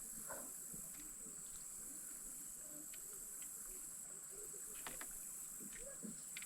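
Quiet creek ambience. Water gurgles softly around the boat under a steady high-pitched insect drone, and a few light clicks and knocks fall here and there, the sharpest about five seconds in.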